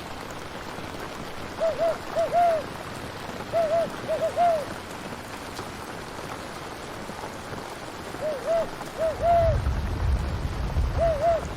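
Steady rain ambience, with short hooting calls in clusters of two or three every few seconds and a low rumble starting near the end.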